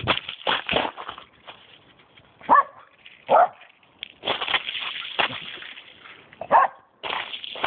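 Cairn terrier barking three times, single sharp barks about 2.5, 3.3 and 6.6 seconds in, with a patter of crackling noise between them.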